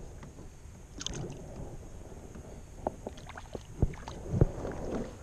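A few sharp knocks and clicks of gear and handling against a plastic sit-on-top kayak, the loudest near the end, with a brief splash about a second in as a bass is let go into the water.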